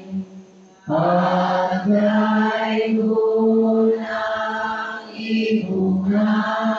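A priest chanting a sung prayer into a handheld microphone, amplified over the church's sound system. It is a male voice in long, level-pitched held notes, in phrases starting about a second in.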